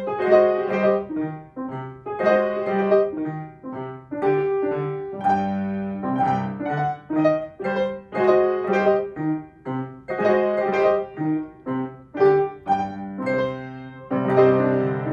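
Several pianos playing one piece together, a steady run of struck notes and chords that each ring and fade.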